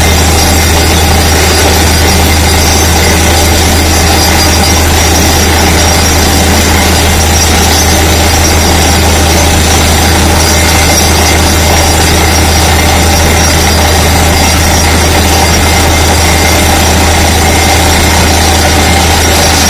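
Truck-mounted DTH (down-the-hole hammer) drilling rig drilling. Its engine runs steadily under a loud hiss of compressed air blowing rock dust out of the borehole.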